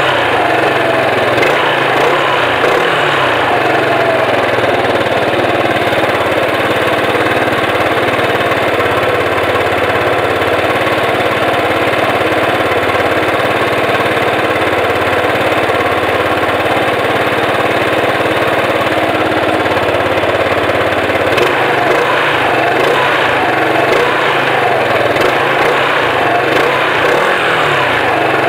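Yamaha XMAX 125 scooter's single-cylinder four-stroke engine idling through a handmade aftermarket exhaust tailpipe, with its pitch briefly rising and falling near the start and again toward the end.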